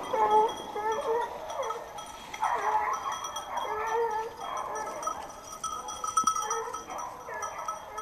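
Hunting hounds baying, giving a rapid run of short, yelping cries one after another.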